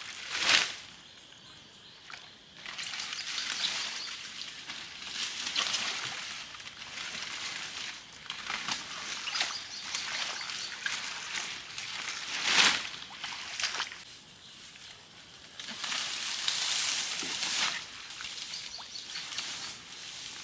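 Water sloshing and splashing in irregular swells, with a couple of sharper splashes, about half a second in and about two-thirds of the way through.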